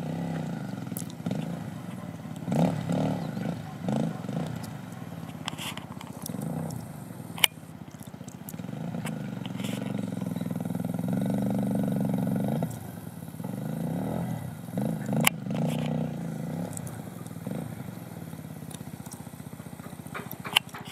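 Motorcycle engine revving up and down again and again, with a couple of sharp clicks.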